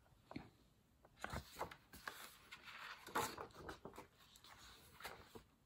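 Faint paper rustling and soft taps as the pages of a picture book are turned by hand.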